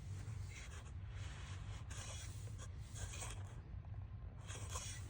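Faint, irregular rubbing and scraping from a plastic Blu-ray case being handled.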